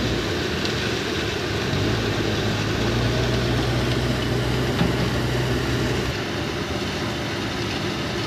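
JCB 3DX backhoe loader's diesel engine running steadily with a low drone as the machine works the gravel stockpiles; about six seconds in the low rumble drops away and the engine sounds farther off.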